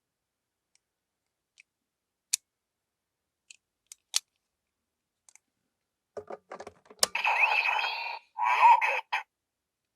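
Small plastic clicks and taps from handling and pressing capsule-toy Astro Switch figures, growing busier about six seconds in, then a sharp click followed by two louder bursts of sound, each about a second long.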